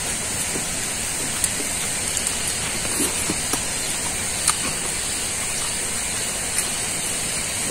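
A steady high hiss throughout, with scattered soft clicks and smacks of chewing as rice is eaten by hand.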